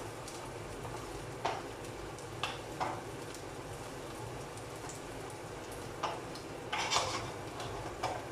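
Garlic and onion sizzling in oil in a non-stick frying pan, stirred with a wooden spoon. A steady sizzle runs under scattered knocks and scrapes of the spoon against the pan, with several close together about seven seconds in.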